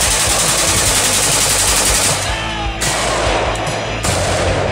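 Rapid bump-fire gunfire from a semi-automatic AK-74-pattern rifle in 5.45×39, fired one-handed in a long run of fast shots with a brief break a little past halfway.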